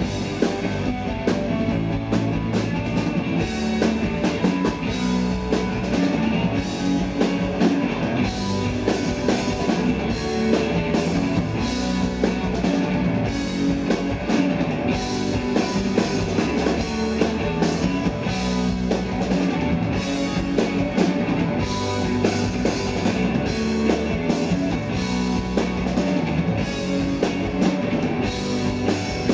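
Live rock band playing an instrumental stretch of the song: electric guitars, bass guitar and drum kit at a steady driving beat, with no singing.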